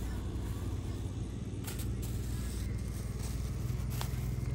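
A steady low mechanical hum, like an engine or motor running, with a few faint clicks.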